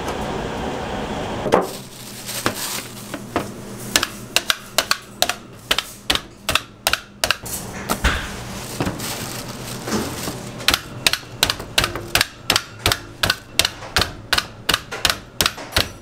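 Steady street noise, cut off about one and a half seconds in by a loud knock. After it comes a run of sharp clicks and knocks from kitchen work with raw whole chickens, irregular at first and then about three or four a second in the second half.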